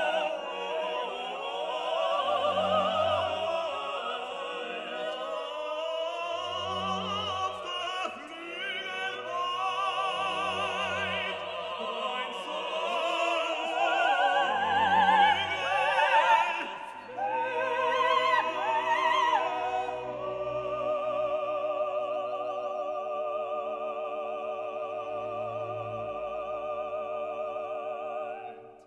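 Background classical music in an operatic style: a singing voice with vibrato over an orchestral accompaniment, with a low note pulsing about every two seconds. Past the middle it settles into long held notes and fades out at the end.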